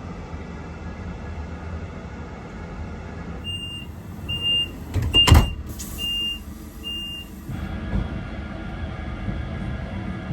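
Passenger train running with a steady low rumble. About midway come five short, high, evenly spaced beeps, with a loud knock among them.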